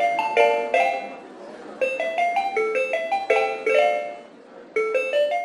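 Short outro jingle of quick, bright mallet-percussion notes, played in three quick runs with brief pauses between them.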